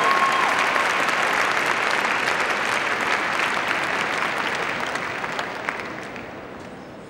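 Large arena audience applauding steadily, then dying away over the last two seconds.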